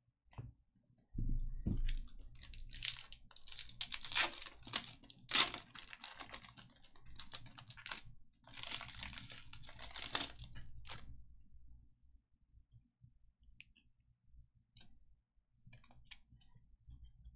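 Trading card pack wrapper being torn open and crinkled: a series of noisy rips and crackles, with a low bump about a second in, dying down about eleven seconds in.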